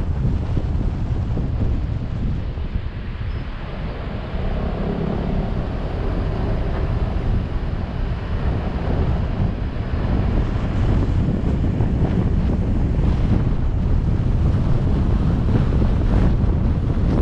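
Steady rush of wind buffeting the microphone over the road and tyre noise of a moving car. It eases briefly a few seconds in and grows louder again from about halfway.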